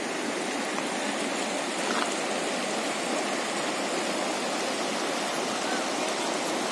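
River water rushing steadily over rocks and rubble in shallow rapids.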